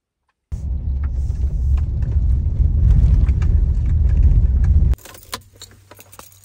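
Car driving on a rough dirt road, heard from inside the cabin: a loud low rumble of tyres and suspension with scattered rattles and clicks. About five seconds in it cuts to a much quieter stretch of clicks and knocks.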